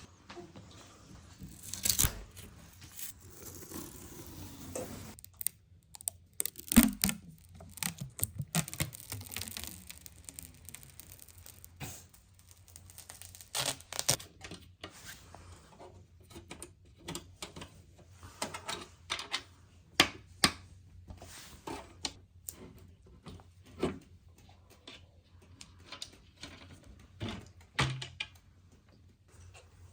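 Hands handling computer parts and their packaging: irregular clicks and knocks with stretches of rustling, the sharpest knocks about seven and twenty seconds in.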